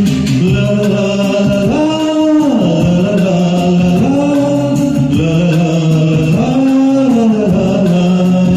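Music: a Hindi film song's backing music between sung lines, one melody of long held notes stepping up and down over steady accompaniment.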